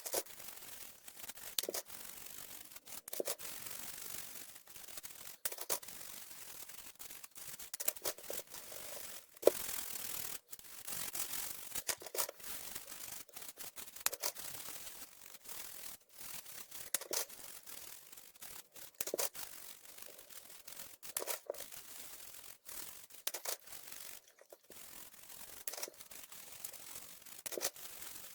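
Hand scrubbing and rubbing on the plastic parts of an HP SK-2502C keyboard during cleaning, in irregular strokes broken by sharp clicks and knocks, the loudest click about nine seconds in.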